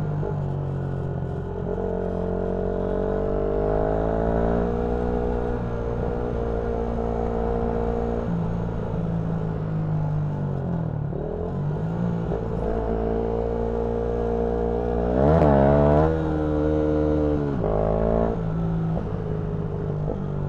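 Yamaha MT-125's single-cylinder engine running on the move, its pitch climbing and falling with the throttle. The pitch dips about ten seconds in and again near the end, and a quick rise and fall about fifteen seconds in is the loudest moment.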